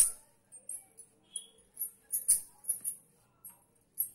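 Rolling pin working a corn-and-fenugreek flour puri dough ball flat on a board, with light jingling at short, uneven intervals.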